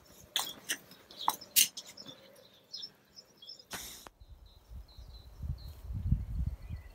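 Metal cocktail shaker and strainer clinking a few times, then a frothy egg-white whisky sour-style cocktail being poured from the shaker into a coupe glass from about five seconds in. Birds chirp faintly.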